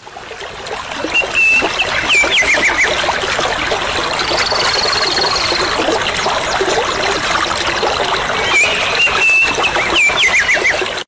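Steady rush of falling water with birds calling over it, fading in at the start: short chirps and quick wavering trills early on and again near the end, and a brief high trill in the middle.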